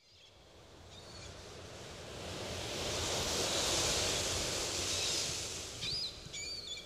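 Ocean surf breaking and washing up a sandy beach, swelling to a peak mid-way and then easing off, with a few high bird chirps near the end.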